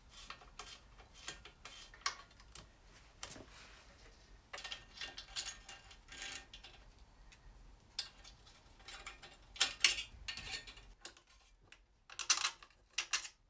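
Light metallic clicks and clinks of a hand tool and exhaust hardware as a motorcycle's slip-on exhaust is undone at its clamp and worked loose. There are louder clanks over the last few seconds as the silencer is pulled off its link pipe.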